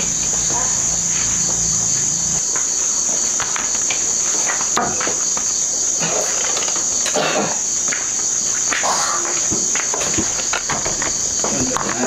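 Crickets chirring in a steady high continuous drone, with scattered light clicks and knocks of dishes. A low hum stops a couple of seconds in.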